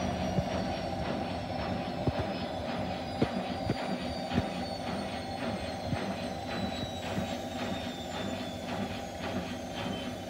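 Bosch Classixx 6 front-loading washing machine on a fast spin: a steady rush from the turning drum, with a motor whine that falls slowly in pitch and a few light knocks.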